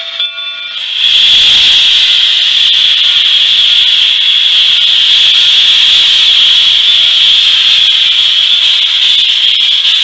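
Steam locomotive venting a loud, steady blast of steam from low on its side, a hiss that starts about a second in and holds. The last moment of a steam whistle blast is heard at the very start.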